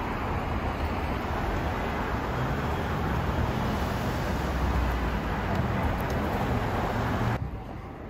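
City street traffic noise: a steady hum and rumble of passing cars and road noise, dropping off abruptly near the end.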